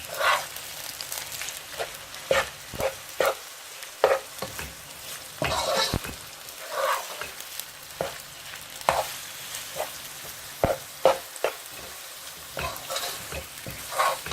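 Minced meat frying on a high flame with onions and ginger-garlic paste, a steady sizzle, while a spoon stirs it and scrapes and knocks against the pan at irregular moments. The meat is at the early stage of browning, cooking until its water dries out.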